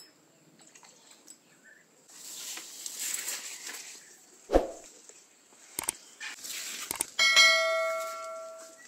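A single bell-like ringing tone starts suddenly about seven seconds in and fades away over about a second and a half. It follows a thump and a few clicks.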